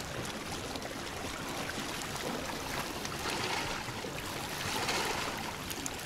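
Small sea waves washing and lapping against the rocks of a stony shoreline, a steady wash that swells a little around the middle, with wind buffeting the microphone.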